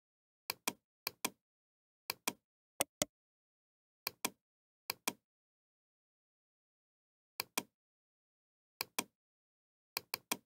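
Computer mouse buttons clicking: short sharp clicks, mostly in quick pairs, about nine bursts at irregular gaps with a triple click near the end.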